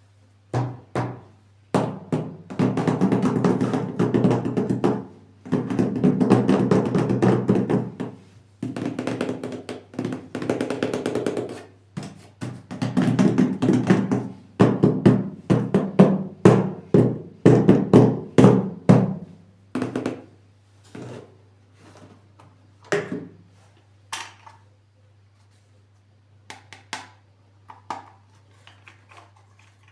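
Plastic toy packaging and toy parts being handled: irregular taps, clicks and stretches of rubbing and scraping, with a quick run of taps in the middle and only scattered taps near the end.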